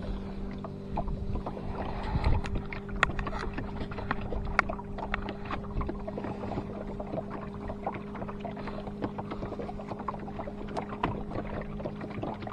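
Small boat's outboard motor running at a steady pitch as the boat motors along, with scattered knocks and splashes of water against the hull.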